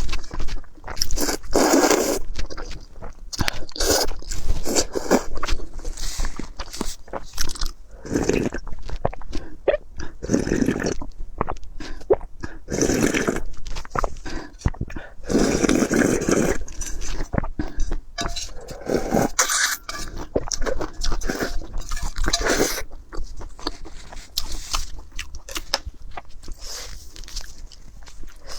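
Close-miked eating: a person biting, crunching and chewing food in many short, uneven strokes.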